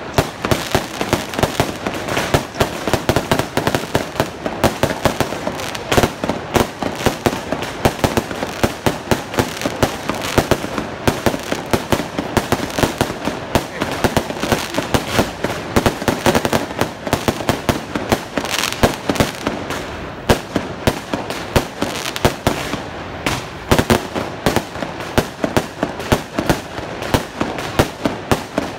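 Aerial fireworks display: a dense, unbroken barrage of bangs and crackling shell bursts, many reports a second, with a few louder bangs standing out.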